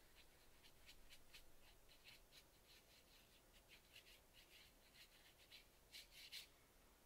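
Fine watercolor brush stroking and dabbing on watercolor paper: a quick run of short, soft strokes, with a few louder ones about six seconds in.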